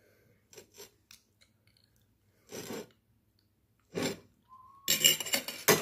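Close-up eating sounds over a plate of sausages and mashed potato. A few small clicks and short wet mouth noises come first, then a denser run of quick smacking and scraping near the end.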